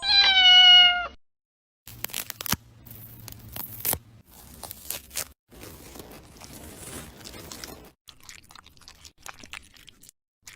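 A cat meows once, a loud call of about a second that slides slightly down in pitch. After a short gap come several seconds of irregular crunching and clicking.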